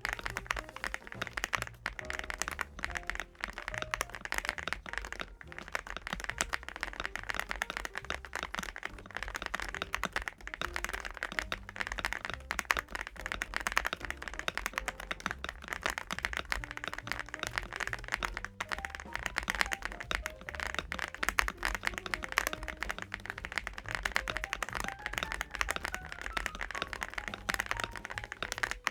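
MCHOSE UT98 mechanical keyboard being typed on continuously: a dense, irregular run of key clacks.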